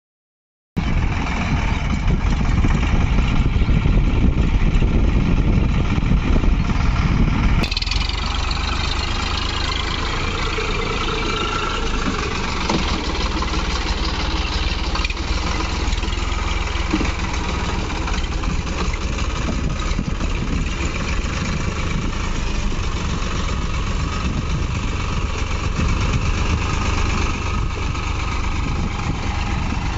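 Eicher 557 4WD tractor's diesel engine running steadily. The sound changes abruptly about eight seconds in, then carries on as before.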